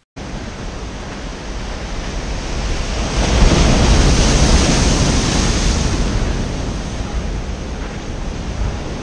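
Sea surf breaking on a rocky shore, starting suddenly, swelling to a big crashing wave about three seconds in and easing off after. Wind rumbles on the microphone.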